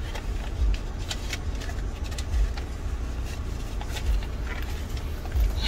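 Steady low rumble of a car idling, heard inside the cabin, with a few faint clicks.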